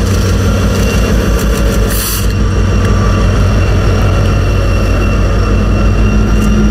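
Diesel-electric freight locomotives passing close by, led by an EMD SD70ACe. Their engines run loud and steady with a deep low drone.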